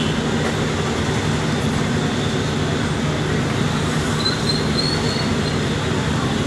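Steady street traffic noise with a low engine hum running throughout. A faint high squeal comes in about four seconds in.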